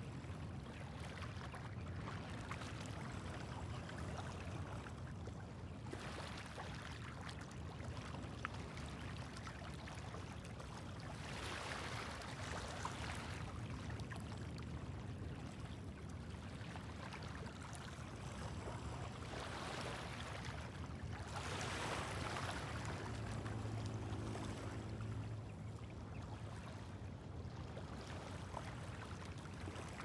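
Small waves washing and lapping onto a pebble beach, the wash swelling and fading every few seconds, over a steady low rumble.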